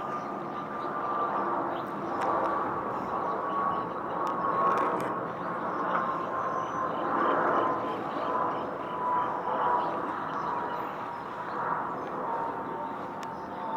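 Steady outdoor hum of distant engines and traffic, with a faint tone that slowly falls in pitch.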